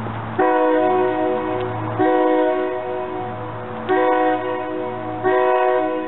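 Horn of an approaching train sounding four blasts: long, long, short, long, the standard pattern sounded for a grade crossing. A low steady hum is heard between the blasts.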